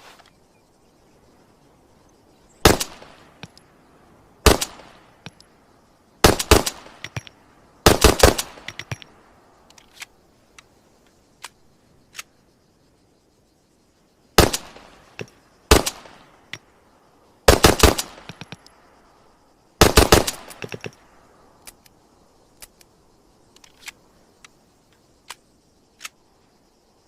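Walther P9 pistol firing: single shots and quick strings of several shots, eight groups in all, with faint light clicks in the pauses between.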